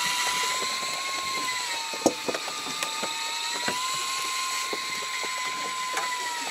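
Electric fishing reel's motor whining steadily as it winds in line, its pitch wavering slightly, with scattered light clicks.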